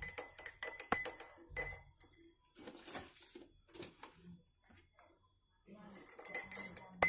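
Spoon stirring a drink in a glass, clinking rapidly against the glass. The clinking thins out to a few faint taps for several seconds in the middle, then picks up again near the end.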